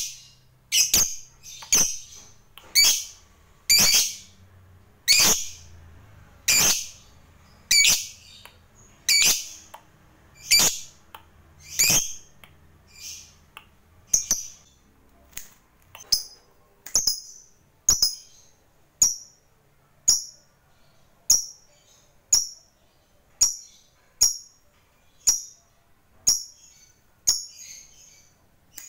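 Lovebird giving a long series of short, shrill chirps, about one a second, getting fainter and shorter toward the end.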